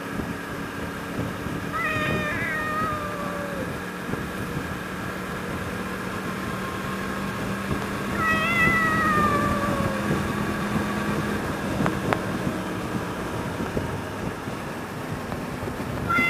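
Meowing: three drawn-out meow calls, each falling in pitch, one about two seconds in, a longer one around the middle and one starting at the end. Beneath them runs a steady hum and road noise from a motorcycle riding in traffic.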